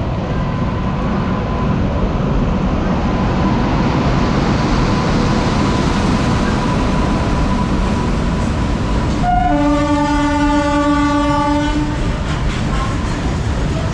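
Goods train of covered wagons rolling past behind an electric locomotive, with a steady rumble and wheel clatter. About nine seconds in, a train horn sounds a chord for about two and a half seconds.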